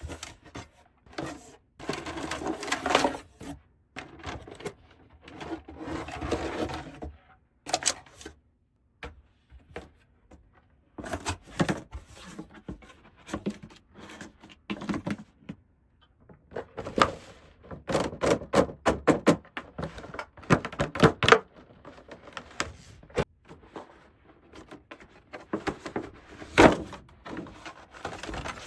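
Small plastic toy pieces of a dollhouse play set being handled: many light clicks, taps and rubs. There are two spells of rustling in the first few seconds and a quick run of clicks near the middle.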